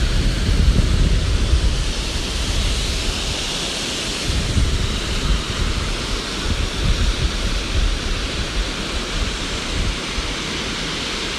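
Waterfall rushing in a steady hiss, with wind buffeting the microphone in uneven low gusts.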